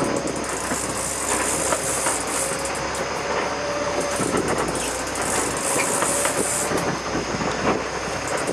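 Sport-fishing boat's engine running under a steady rush of wind and water, with a faint whine that comes and goes.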